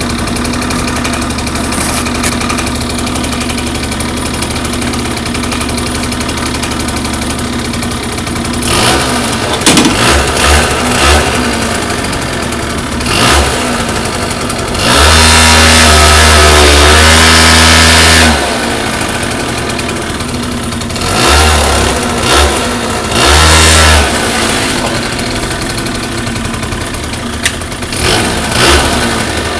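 Benelli 49X 50cc two-stroke scooter engine with a sport exhaust, idling steadily, then revved in short throttle blips and one long rev of about three seconds in the middle, the loudest part, before dropping back to idle.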